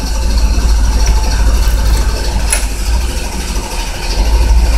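Milk truck's engine turning over on its own with no key in the ignition, a steady low rumble that does not catch and run.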